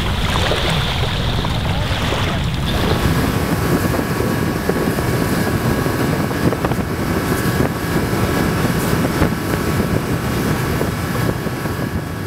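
Motorboat engine running steadily underway, with wind buffeting the microphone. For about the first three seconds, before the engine comes in, there is a lighter hiss of wind and lapping water at the shoreline.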